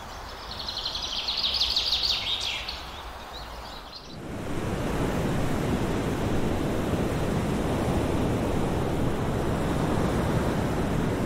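A high, rapid chirping trill for about the first three seconds, then the steady rushing wash of ocean surf and breaking waves.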